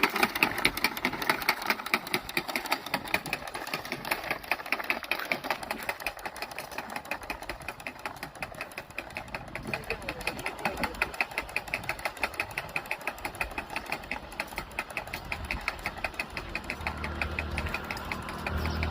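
Hand-pushed manual seed planter clicking and rattling as it is pushed, about five even mechanical clicks a second from its seed-metering mechanism. Near the end a low engine hum rises underneath.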